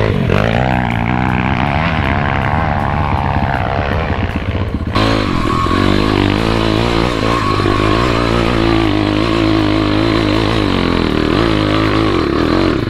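Off-road motorcycle engine revving and running under load on a dirt trail, the pitch rising and falling with the throttle. About five seconds in the sound changes abruptly to a steadier engine note from the rider's own dirt bike.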